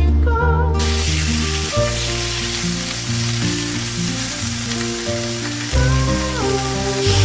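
Food sizzling as it fries in hot oil, the hiss cutting in about a second in, over background music.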